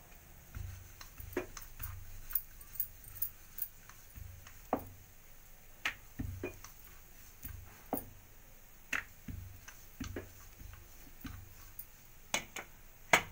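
Wooden rolling pin rolling paratha dough on a marble board in low rumbling strokes, with scattered sharp clicks and clinks at uneven intervals. The loudest click comes just before the end.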